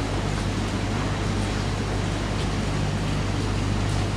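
A steady mechanical hum: a motor or engine running evenly, with a constant low drone under a wash of noise.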